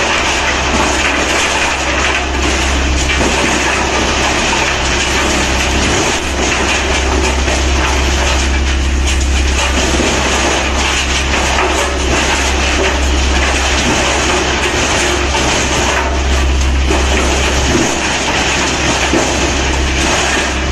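Large wood-chipping machine running, a loud continuous mechanical rattle over a steady low hum.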